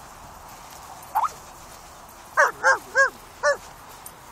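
Dog playing chase: a short rising whine about a second in, then four sharp barks in quick succession a little past halfway.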